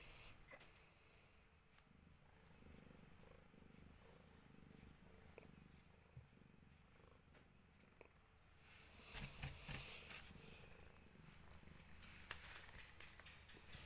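Domestic cat in labour purring faintly while being stroked, a slow, even in-and-out rhythm. From about nine seconds in come louder rustling and scratching noises on the cloth and cardboard.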